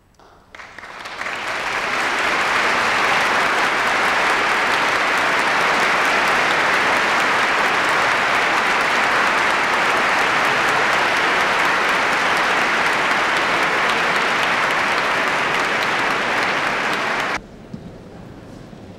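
Large concert-hall audience applauding. The clapping builds over the first two seconds, holds steady and loud, then cuts off abruptly near the end.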